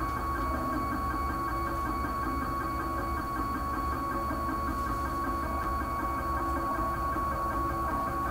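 Homemade 3D printer running while laying down yellow filament: its stepper motors and cooling fan give a steady high whine over a low hum.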